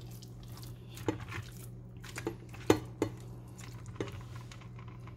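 Marinated chicken pieces being handled in a stainless steel bowl and loaded onto a rotisserie spit: about five light metallic clinks and knocks, the loudest a little under three seconds in, with soft squelching of the wet meat.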